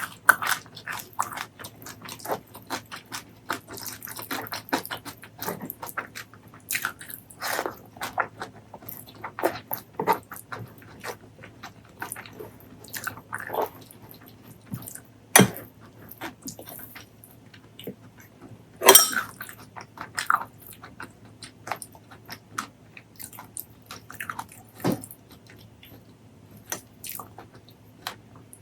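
Close-miked eating: irregular chewing and biting with crunchy, wet mouth sounds, a few bites sharper and louder than the rest, the loudest about two-thirds of the way through.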